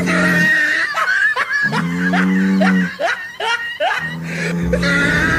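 Music with a run of short laughing or snickering sounds over it, the kind of sound effect laid into edited meme videos.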